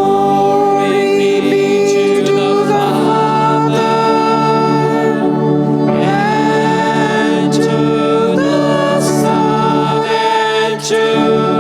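Choir singing with music, long held notes that change every second or two.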